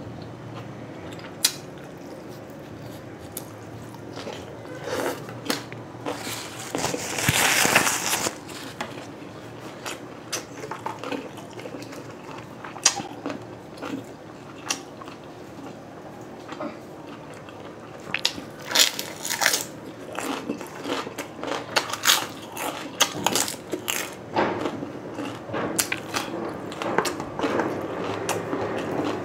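Close-miked eating: chewing and biting grilled meat skewers, with many sharp clicks and taps scattered throughout. There is a longer noisy burst about seven seconds in.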